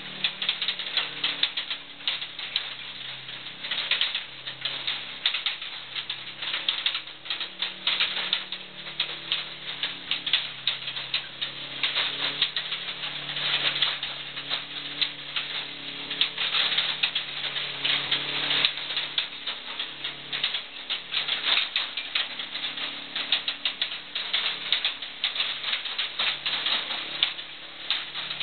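Small work vehicle driving through a narrow tunnel: dense, rapid clattering and crackling from its tyres and frame rattling over the rough floor, with a faint steady low hum underneath.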